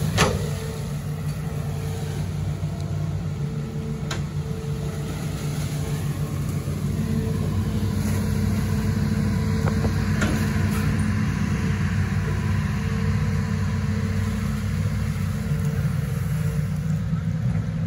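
The diesel engine of a Hitachi Zaxis 210 amphibious excavator runs steadily under working load while the machine digs and swings its bucket. There are a few faint knocks.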